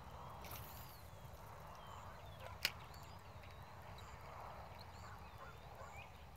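Faint bird calls over a low background rumble, with one sharp click a little over two and a half seconds in.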